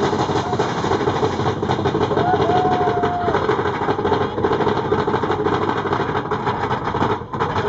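Mine-train roller coaster running along its track: a loud, steady rumble and rattle of the train. About two seconds in, a brief tone rises and then holds for about a second.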